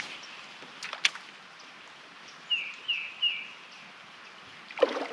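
A bird calling three short, falling chirps in quick succession about two and a half seconds in, over a steady outdoor hiss. A couple of sharp clicks come about a second in, and a louder, noisier sound starts near the end.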